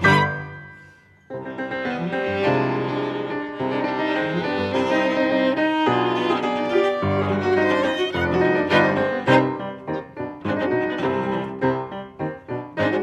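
A piano trio of grand piano, violin and cello playing classical-style chamber music. A loud chord dies away into a short pause about a second in, then the trio comes back in with held bowed notes over the piano, turning more rhythmic and accented toward the end.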